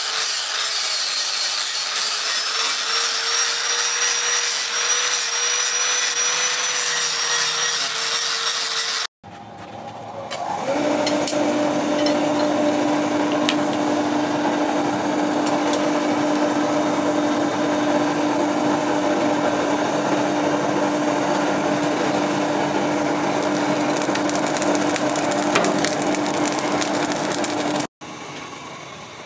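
Angle grinder grinding the steel of an axe head forged from a leaf spring: a steady whine over gritty hiss. After an abrupt cut about nine seconds in, a power tool's electric motor spins up and runs steadily with a low hum and scraping for most of the rest. Near the end it drops to a quieter stretch.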